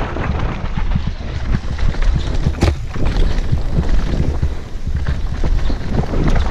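Helmet-mounted camera riding a mountain bike fast down a rough dirt and rock trail: wind buffets the microphone, and the tyres and bike rattle over the ground with repeated heavy low thumps from the bumps. There is a sharp clack about two and a half seconds in.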